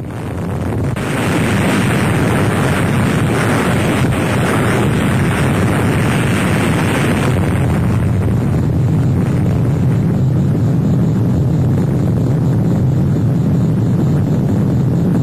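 A loud, steady rumbling roar that starts suddenly and builds within the first second, then holds without a break, with a harsher upper edge for the first several seconds.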